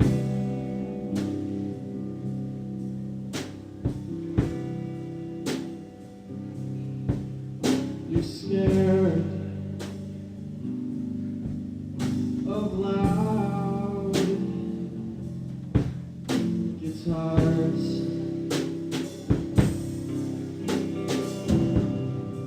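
Band playing: guitars over a drum kit, with steady sustained chords and frequent drum hits.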